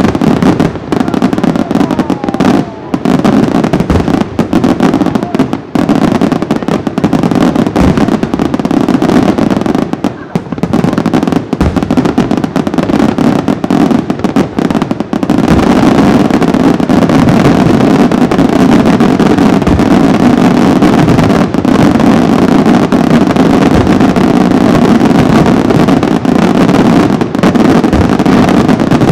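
Senatore Fireworks aerial shells bursting in quick succession with crackling reports. About halfway through the bangs merge into a continuous dense barrage.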